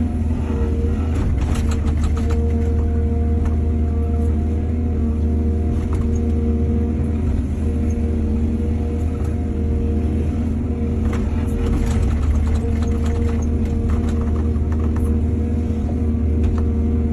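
Excavator's diesel engine running steadily under load, with bursts of clattering about two seconds in and again from about eleven to fifteen seconds in.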